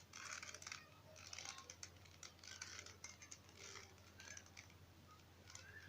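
Rubik's Cube being turned by hand: a quick run of faint plastic clicks and rasps as the layers rotate, with most of the turns in the first half, over a steady low hum.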